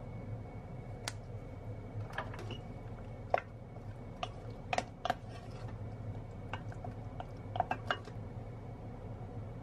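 Wooden spoon stirring diced apples in an enamel saucepan: scattered light knocks and clicks of the spoon against the pot, in small clusters, over a steady low hum.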